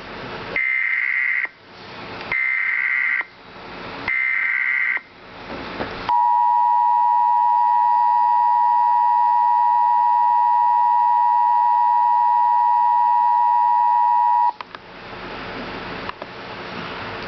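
Emergency Alert System tones: three short data bursts of the SAME digital header, then the steady two-tone attention signal held for about eight seconds before cutting off sharply. A hiss of background noise follows.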